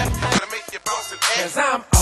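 Hip hop track with a rapped vocal; the heavy bass beat drops out about half a second in, leaving the vocal almost alone.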